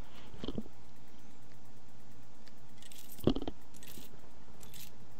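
A few light clicks and one sharper knock about three seconds in, handling noises at a desk, over a steady electrical hum, with short hissy rustles around the knock.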